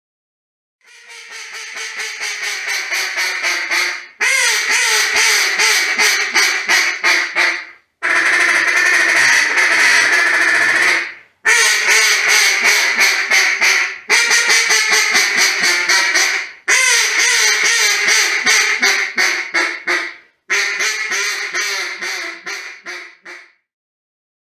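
Yellow River Calls Helo duck call blown in seven runs of quick quacks, about six a second, each run lasting three to four seconds. The first run builds up in loudness, and the run about eight seconds in is a smoother, unbroken chatter.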